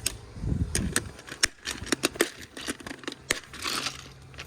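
Irregular clicks and rattles of a plastic small-parts organizer box being handled, with screws being picked through inside it.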